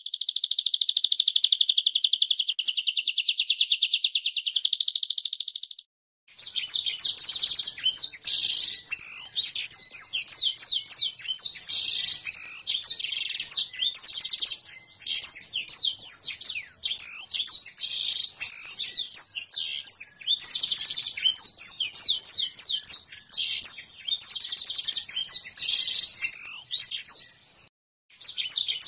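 Domestic canary singing. It opens with one long, rapid trill of about six seconds, then after a short pause goes into a dense, varied run of quick rising and falling notes and rolls, breaking off briefly near the end.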